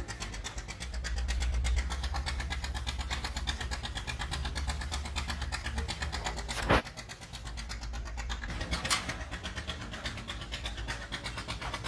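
An engine idling steadily: a low rumble with a fast, even beat. There is a sharp click about two-thirds of the way through, after which the low rumble is weaker.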